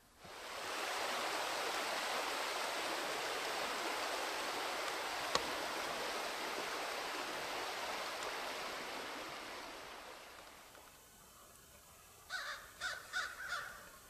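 Steady rush of a running stream that fades away about ten seconds in, with a single sharp click partway through. Near the end, a quick run of crow caws.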